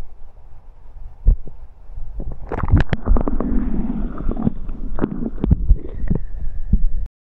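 River water sloshing and gurgling against a camera dipped below the surface while a trout is let go by hand. Irregular knocks and splashes get much louder from about two and a half seconds in, and the sound cuts off abruptly near the end.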